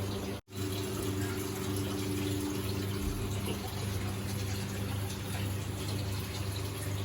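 Steady rushing water over a low, even motor hum, broken by a brief silent gap about half a second in.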